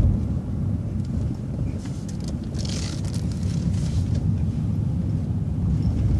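City transit bus driving, its engine and road noise a steady low rumble heard from inside the bus, with a short hiss about two and a half seconds in.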